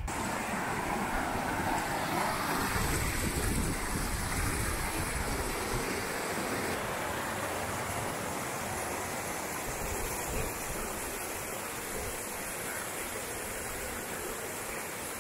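Mountain stream rushing over boulders: a steady rush of running water, which changes and drops a little in level about seven seconds in.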